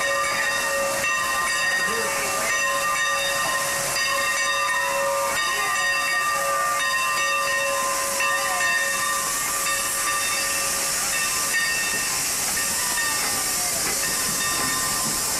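Sierra Railway No. 28, a Baldwin steam locomotive, hissing steam steadily at close range, with a steady high tone running underneath.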